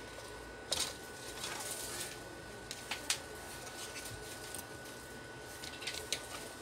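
A few sharp light clicks and taps from hands handling a laptop's plastic screen bezel and hinge area: one about a second in, two close together around three seconds, and a small cluster near the end. A faint steady high tone sits underneath.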